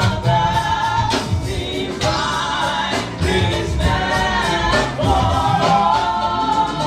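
Congregation and choir singing a hymn over a band with drums and bass, in a gospel style.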